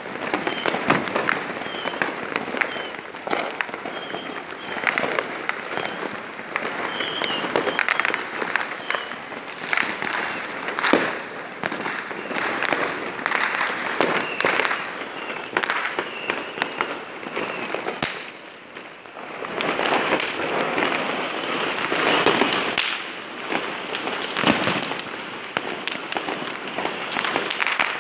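Many firecrackers and fireworks going off at once, near and far: a dense, constant run of pops and bangs with a brief lull about two-thirds through.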